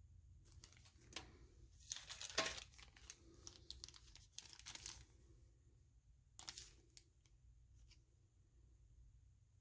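Clear plastic retail packets crinkling as they are handled, set down on a table and picked up, in irregular bursts, the loudest about two seconds in and a last short one about six and a half seconds in.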